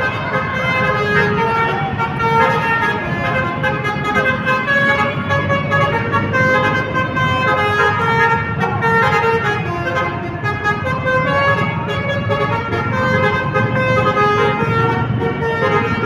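Tour bus's telolet horn playing a tune: a run of held horn notes stepping from pitch to pitch, over a steady low rumble.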